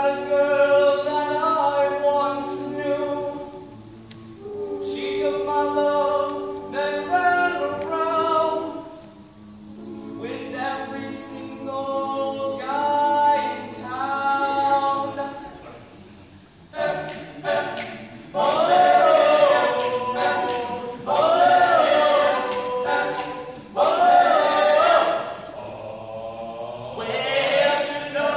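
Male a cappella group singing in close harmony, in phrases broken by short pauses. About halfway through it grows louder, with a lead voice sliding up and down in pitch above the group.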